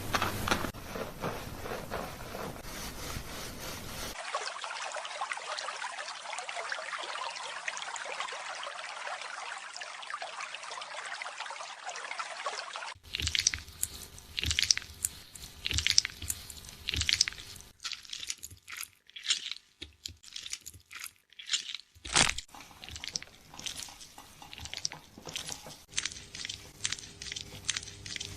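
Hands scrubbing a lathered head of hair close to the microphone, making crunchy, crackling rubbing sounds. About four seconds in, a steady hiss starts and runs for roughly nine seconds before stopping abruptly. After it come separate scratching strokes with short pauses.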